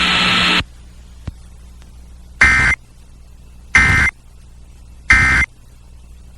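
Emergency Alert System end-of-message signal: three short, identical buzzy data bursts about a second and a half apart, the digital 'NNNN' code that marks the end of the alert. Before it, a steady hiss cuts off abruptly about half a second in.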